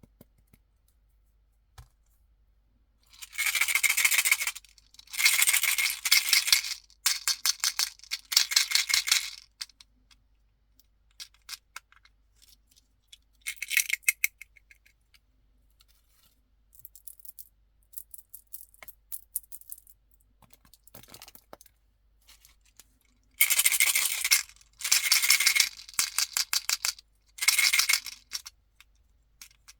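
Small hard candies rattling inside a container as it is shaken, in separate shakes of about a second each: four early on, one in the middle and four near the end.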